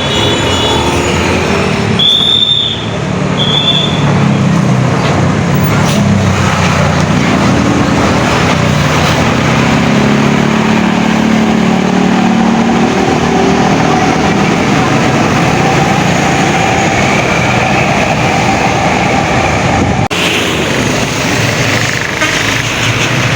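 Large tour bus's diesel engine running close by and pulling past, its rumble swelling and easing, with two short high tones about two seconds in.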